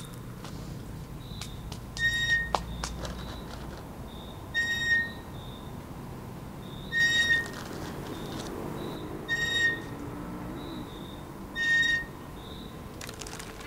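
Squeaky metal playground swing, one short, high squeak each time it swings, about every two and a half seconds, five times in all.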